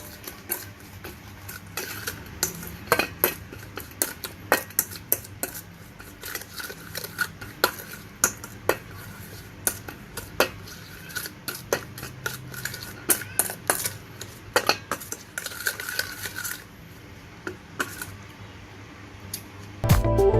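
A utensil clinking, knocking and scraping against a bowl in irregular strokes while ingredients are mixed. Music comes in near the end.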